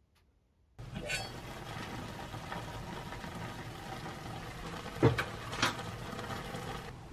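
A pot of water boiling with instant ramen noodles in it, starting about a second in: steady bubbling, with three sharp knocks against the pot, the loudest about five seconds in.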